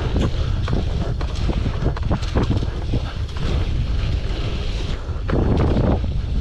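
Wind buffeting the microphone: a steady low rumble with scattered knocks, swelling louder about five seconds in.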